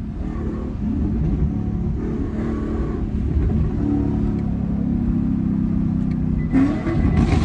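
Camaro 2SS 6.2-litre V8 running through a freshly installed aftermarket exhaust, the revs rising and falling, with a louder blast near the end.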